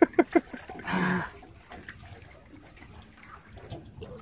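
Water sloshing and trickling against the boat's hull, with a short vocal exclamation about a second in.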